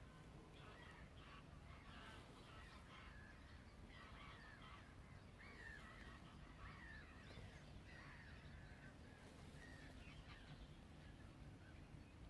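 Faint outdoor bird calls: a run of short, quick calls repeating every half second or so, over a low steady background rumble.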